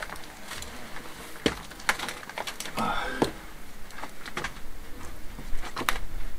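Irregular knocks, clicks and scrapes of dry canes and rubble being pulled loose and handled by hand, with scuffing from someone climbing the wall.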